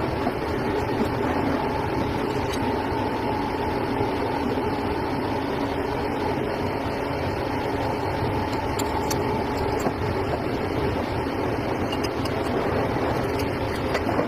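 A workshop machine running steadily, with a faint whine that fades out about ten seconds in.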